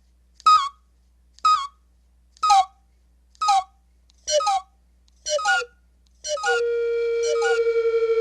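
Short whistle-like pitched chirps, about one a second, each pitched a little lower than the last. A steady held tone comes in about six seconds in beneath them.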